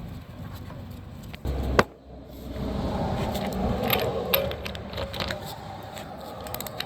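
A few sharp metallic clicks and clinks of lug nuts and hand tools as a wheel is mounted, the loudest just before two seconds in.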